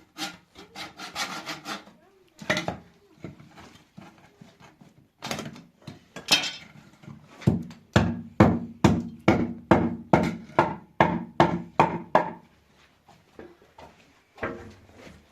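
Repeated scraping strokes on wood, like hand sawing: a few scattered strokes, then a steady run of about three strokes a second through the middle, stopping about three seconds before the end.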